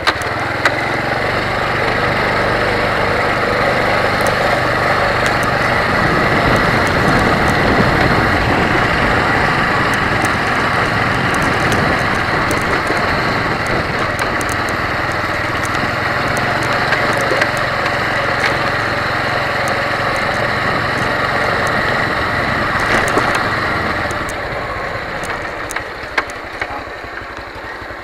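Motorcycle engine running along a rough dirt track, with scattered knocks and rattles from the bumps. It eases off in the last few seconds as the bike slows.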